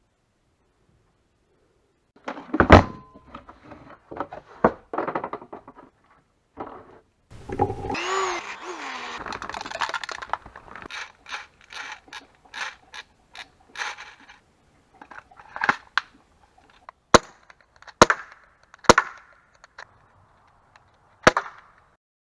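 Airsoft pistol being handled and worked, with clattering clicks and snaps and four sharp cracks near the end.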